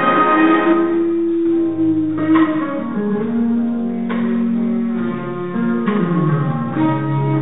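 Jazz ensemble playing a slow ballad: the full brass sound thins out about a second in, leaving a quieter melody of long held notes over a soft accompaniment.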